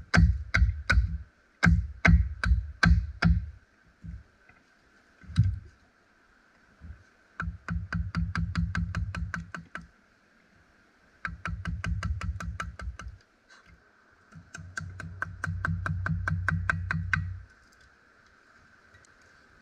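Wooden mallet striking a carving gouge into a wooden bowl blank: a few spaced knocks at first, then quick runs of rapid knocks a few seconds long with short pauses between.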